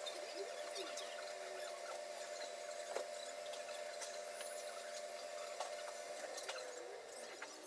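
A steady motor hum that slides down in pitch and fades out near the end, with a few faint clicks.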